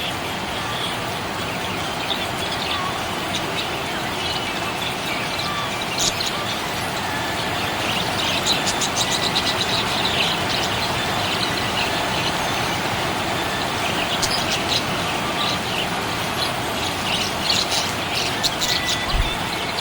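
Budgerigars chirping over a steady background noise, with runs of rapid high chirps about eight seconds in and again near the end.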